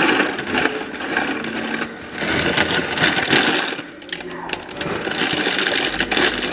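Dry pasta poured from a plastic bag into a cardboard box, rattling as it falls, with the plastic bag crinkling. The pouring pauses briefly about four seconds in, then starts again.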